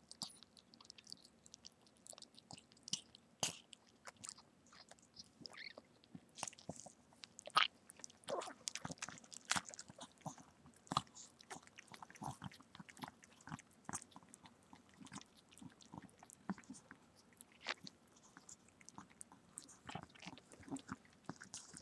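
Irregular wet clicks and smacks of a mother chihuahua licking and chewing at her newborn puppy.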